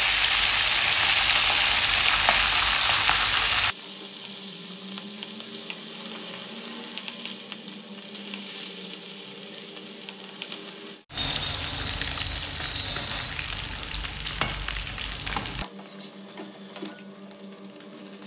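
Pre-boiled chicken pieces frying in hot oil in a wok, a steady sizzle with occasional clicks of a metal spatula turning the pieces. The sizzle is loudest for the first few seconds, and its level and tone jump abruptly three times.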